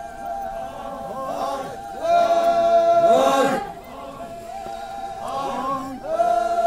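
A large group of voices chanting a traditional Naga procession chant. Quieter sliding phrases alternate with loud notes held together, one about two seconds in and another near the end.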